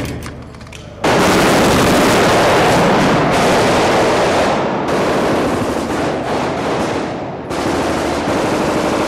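Rapid automatic gunfire, machine-gun bursts that start suddenly about a second in and run on almost without a break.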